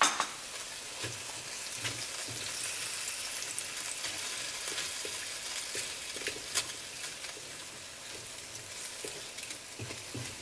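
Chicken in a cornstarch-thickened sauce sizzling in a hot cast iron wok while being stirred with a spatula: a steady hiss with scattered light clicks of the spatula against the pan.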